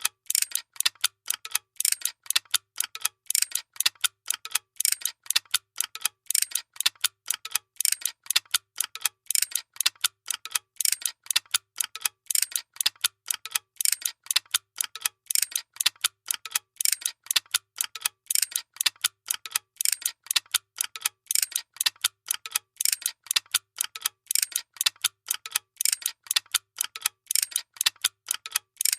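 Workshop machinery ticking: a steady, even train of sharp, bright clicks, about four a second, with no let-up.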